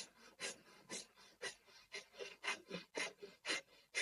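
Quick, rhythmic breathing through one nostril (the left, the right one held closed), a short hissing breath about twice a second, in and out, as the first stage of nadi shodhana alternate-nostril pranayama.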